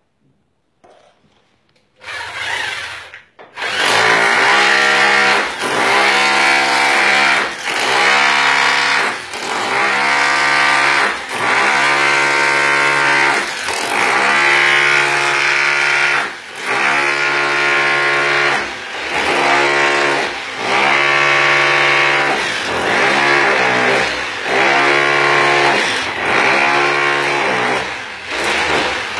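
Electric rotary hammer chiselling through ceramic bathroom wall tile, cutting the wall open at a detected hot-water-line leak. It starts briefly about two seconds in, then runs loudly from about three and a half seconds, with short let-ups every couple of seconds as the bit is repositioned.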